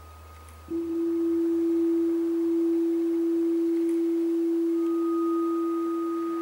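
Electronic soundtrack of steady sine-wave tones. Under a second in, a low hum stops and a loud pure low tone cuts in abruptly and holds unchanging. A fainter high pure tone joins it near the end.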